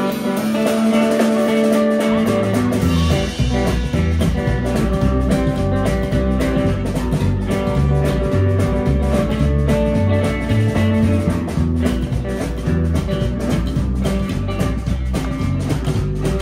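A live band playing: hollow-body electric guitar, upright double bass plucked and a drum kit. The double bass comes in about two seconds in with a steady line of low notes under the guitar and drums.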